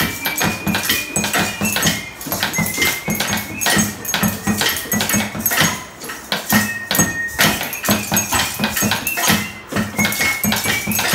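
Improvised homemade percussion played by a student group in rhythm: steady knocks and clicks with repeated low thumps from a plastic-jar drum and metal lids, over a thin high piping melody of held notes that step up and down.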